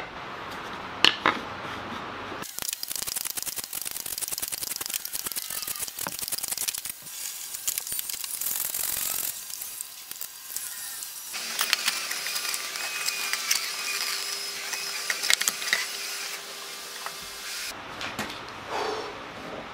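Hand woodworking tools cutting walnut: a dense, rasping run of saw and plane strokes, in several short passes that start about two seconds in. There are a couple of light knocks about a second in.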